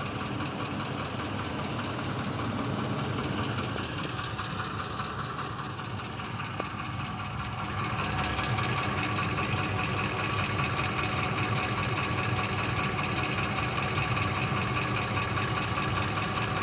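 Ford 5.4-litre 3-valve Triton V8 running with a fast, steady knocking tick, the knock being diagnosed. The engine grows louder about halfway through.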